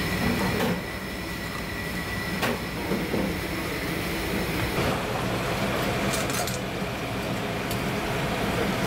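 A kitchen knife scraping scales off a scorpionfish, with a few sharp knocks on the cutting board near the start. Behind it runs steady background noise with a faint high whine.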